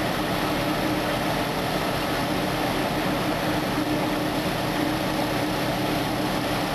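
Engine running steadily at a constant speed on the fire ground, an even, unbroken drone with a steady hum that does not change in pitch.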